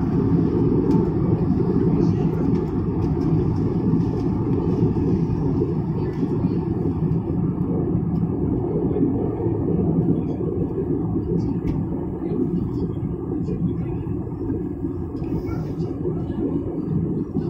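Airbus airliner cabin noise in cruise: a steady low rumble of engines and airflow, with a few faint small clicks on top.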